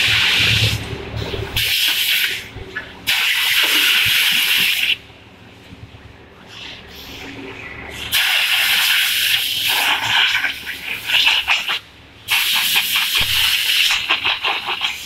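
Repeated loud bursts of hissing air at a vacuum compression molding press for silicone O-rings, each lasting one to three seconds, with a longer pause in the middle.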